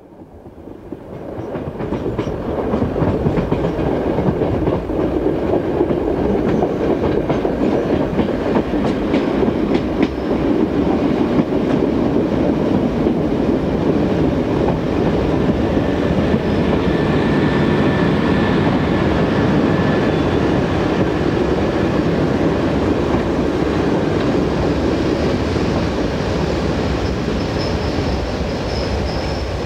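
Noise intro of an electronic track: a dense, rushing, rumbling noise fades in over the first couple of seconds and then holds steady. Faint thin high tones come in over it in the second half.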